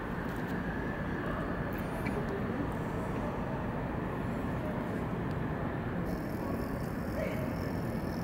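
Steady city ambience: a constant low rumble and hiss with no distinct events.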